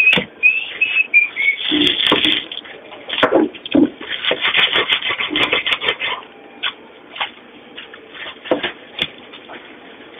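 Rustling and clattering of hands at work in a commercial kitchen, dense for a few seconds and then a few scattered knocks, with a brief high wavering tone at the start.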